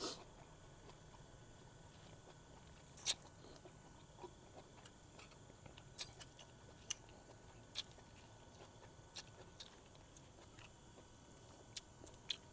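Quiet eating sounds: chewing and scattered light clicks and taps, the sharpest about three seconds in, over a faint steady background.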